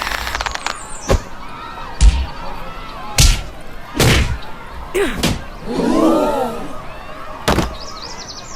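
Punches landing in a fistfight: about eight heavy thuds, roughly one a second, with a voice crying out about six seconds in.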